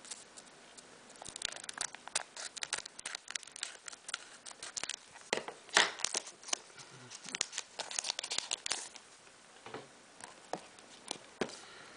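Pokémon booster pack wrapper crinkling and tearing open, with bursts of sharp crackles as the foil is handled and the cards are slid out.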